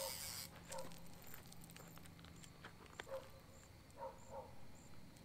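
A catfish rod being cast: a brief whoosh as the rod swings through at the start, followed by a few faint clicks. Faint high chirps repeat about twice a second throughout.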